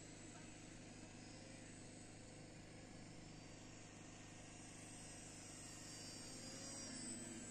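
Faint, steady buzz of electric RC model warplanes flying at a distance, the pitch shifting a little in the second half as they manoeuvre.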